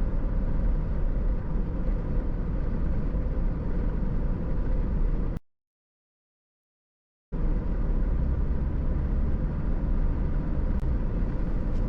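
Steady road and engine rumble of a car driving, heard from inside the cabin. About five seconds in, the sound cuts out completely for about two seconds, then comes back as before.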